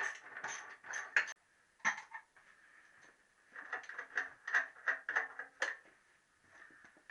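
Metal clinks and light knocks of a spanner on the petrol tap fittings of a motorcycle fuel tank as they are worked loose. They come in two clusters of quick clicks with a quiet gap between.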